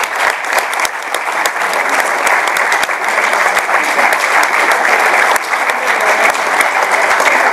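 Audience applauding steadily: many hands clapping at once in a dense, unbroken patter.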